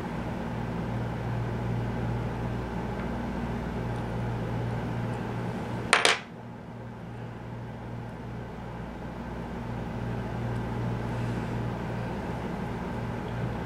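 Steady low electrical or fan hum of a small room, with one sharp click about six seconds in.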